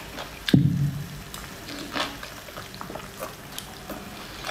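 Food being handled and eaten: a dull thump about half a second in, then scattered small wet clicks.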